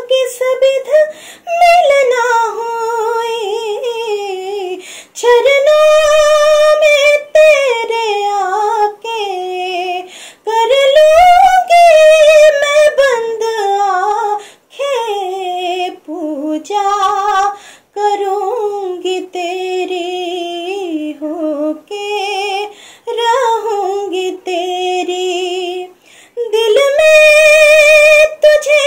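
A woman singing unaccompanied: a slow melody in phrases a few seconds long, with long held, wavering notes and short breaks for breath between phrases.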